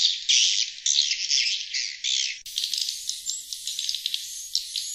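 Swiftlet (sriti) lure call: a dense, high chorus of twittering chatter in quick bursts. About two and a half seconds in it cuts abruptly to a thinner, hissier stretch of continuous twittering with a few short whistles, as at a splice in the looped recording.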